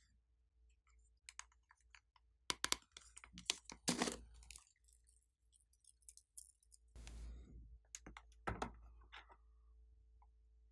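Small plastic beads rattling and clicking as they are shaken and poured from a plastic container into a plastic tray, with light taps of the container. Irregular clicks, with a denser rattle a few seconds in and a shorter rustle of pouring near the middle.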